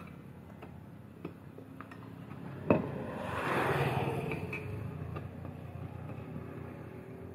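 Steel tyre levers clinking and scraping against a spoked motorcycle rim as the tyre bead is worked over the rim edge: scattered light clicks, a sharp metal click a little under three seconds in, then a louder rush of scraping noise that swells and fades over about two seconds.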